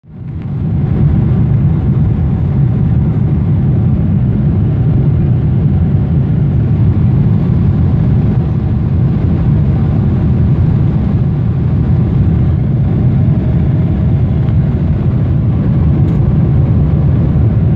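Jet airliner heard from inside the cabin in flight: a steady low rumble of engines and airflow that fades in over the first second and holds unchanged.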